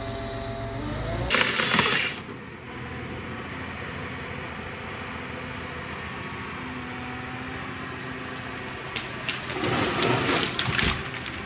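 John Deere 1270G harvester at work: its engine runs steadily, with a loud burst of noise about a second in and another run of loud noisy bursts with sharp clicks near the end, as the harvester head processes a log.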